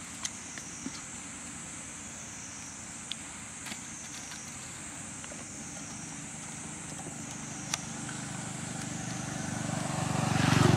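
A motor vehicle's engine running, with a low pulsing hum that grows steadily louder over the last few seconds as it comes closer. A steady high-pitched drone runs underneath.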